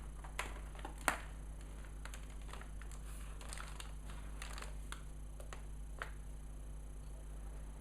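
About a dozen light, irregular clicks and taps, most of them in the first six seconds and the sharpest about a second in, over a steady low hum.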